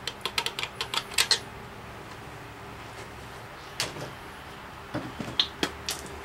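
A quick run of light metallic clicks, about ten in the first second and a half, then a few scattered single clicks and knocks, from hand work on the bottom end of a small-block Chevy 383 engine block being torn down.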